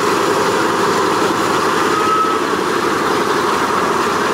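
Four radial piston engines of a B-17 Flying Fortress running at low power as the bomber taxis, a steady, rough throb. A short high squeal sounds about two seconds in.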